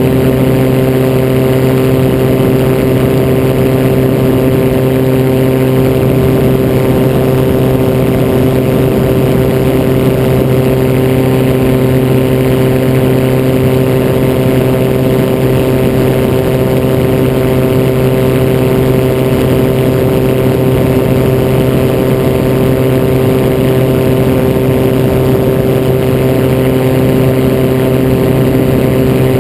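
Gyroplane engine and propeller running steadily in cruise flight, the pitch holding even throughout.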